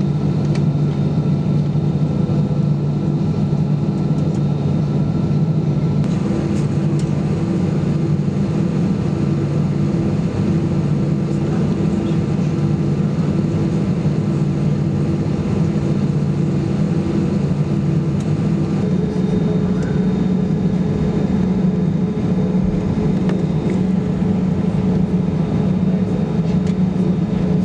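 Inside the cabin of an Airbus A320 taxiing: a steady hum from its CFM56 engines at taxi power, mixed with cabin air noise. Faint whine tones in it change pitch about six seconds in and again about nineteen seconds in.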